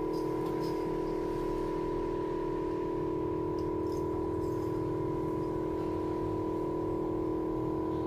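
Steady, even hum of a phone-screen LCD separator machine's vacuum pump, holding the heated screen down by suction during glass separation, with a few faint light clicks of handling.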